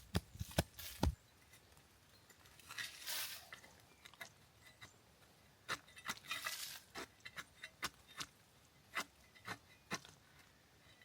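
Objects being handled at close range: a quick run of knocks in the first second, two short rustling scrapes, and scattered light clicks.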